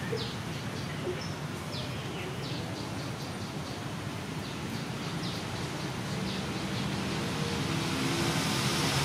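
Steady hum of road traffic with scattered short high bird chirps; the traffic grows a little louder toward the end.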